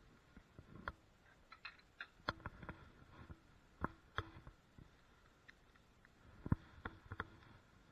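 Irregular light knocks and clicks of wooden boards and tools being handled during frame building, some leaving a short ringing tone; the loudest knock comes about six and a half seconds in.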